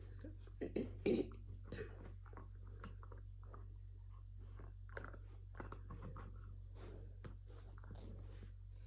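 Samoyed puppy gnawing on a nylon chew bone: irregular clicks and crunches, loudest about a second in, then fainter and scattered.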